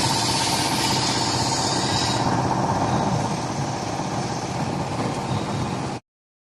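CNC sheet-metal bending center and its gantry loading robot running: a steady mechanical hum with a constant whine and a high hiss that drops away about two seconds in. The sound cuts off abruptly near the end.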